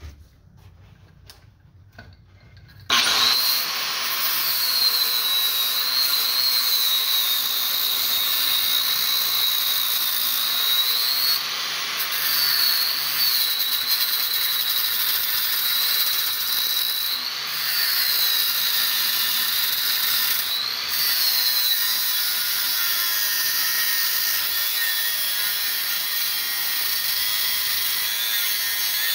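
An angle grinder with a cut-off wheel starts up about three seconds in and cuts through the copper bars of a Lincoln SA-300 welder's armature. Its high whine sags and recovers several times as the wheel bites into the metal.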